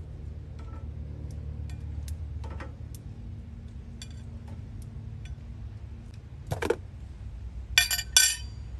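Grilled vegetables being served onto a ceramic plate: light taps and clicks of tongs on the plate, then two sharp ringing clinks of a metal fork against the plate near the end, over a steady low hum.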